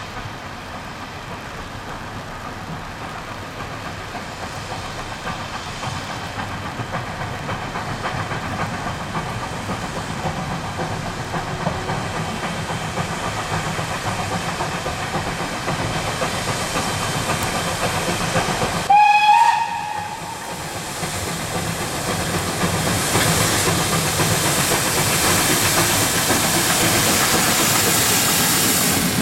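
Steam locomotive running and drawing nearer, its noise growing steadily louder, with one short whistle blast about two-thirds of the way through.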